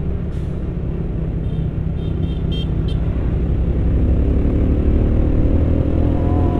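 Truck engine running with road noise heard from inside the cab, its note rising and getting louder in the second half as the truck speeds up. A few short high beeps sound around two seconds in.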